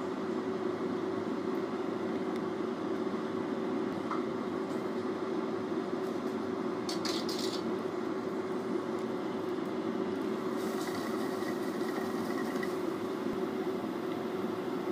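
A metal spoon clinks and scrapes against a clay cooking pot a few times about seven seconds in, with a lighter patch of scraping or sizzling around eleven seconds, all over a steady low background noise.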